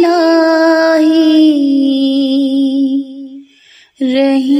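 A woman singing an Urdu devotional dua, holding one long note that slowly falls in pitch. It breaks off about three and a half seconds in for a breath, and the next phrase begins just before the end.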